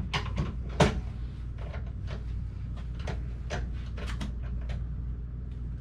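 A run of light, scattered clicks and knocks over a steady low hum, with one sharper knock about a second in.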